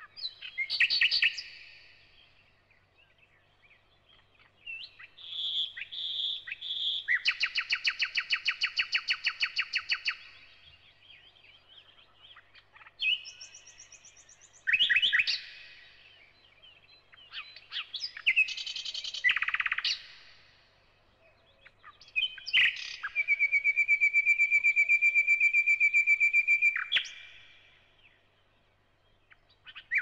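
Thrush nightingale singing in separate phrases: short whistles and clicks, and long, fast rattling series of repeated notes, with pauses of a second or two between phrases.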